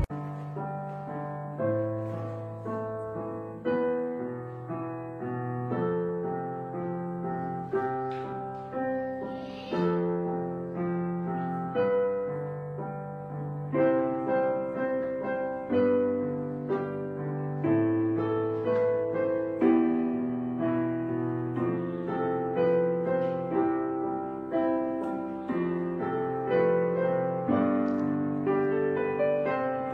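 Background solo piano music: single notes and chords struck one after another, each fading away.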